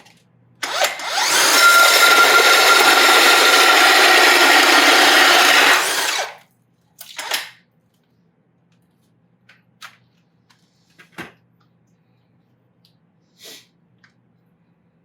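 Power drill driving a 4 5/8-inch Milwaukee Big Hawg carbide-tooth hole saw, cutting steadily for about six seconds and then stopping abruptly. A few light knocks follow.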